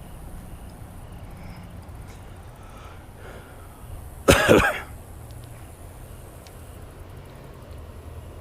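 A person coughs once, a short, sharp burst about four seconds in, over a steady low background noise.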